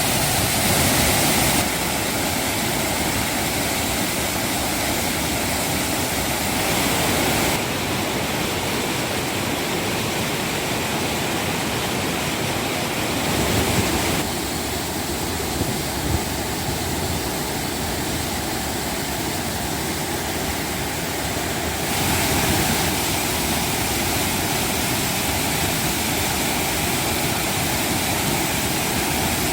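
Waterfall roaring with a heavy, concentrated flow: the water of a 20 m wide fall forced into its right half by landslide debris. The roar shifts in tone abruptly several times.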